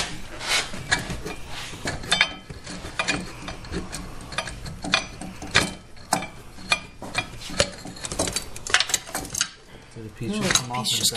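Steel gear puller and ratchet wrench clinking and rattling in many irregular sharp metal clicks as the puller's jaws are hooked around a golf cart's driven clutch and tightened.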